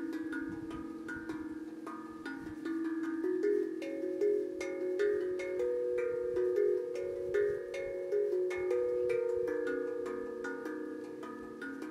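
Steel tank drum (tongue drum) played by hand: a slow melody of single struck notes, about two a second, each ringing on and overlapping the next.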